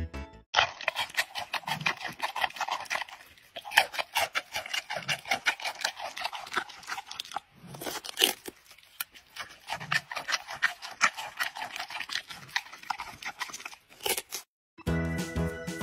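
Giant panda crunching and chewing a chunk of raw squash: quick, irregular crackling bites with short pauses between them.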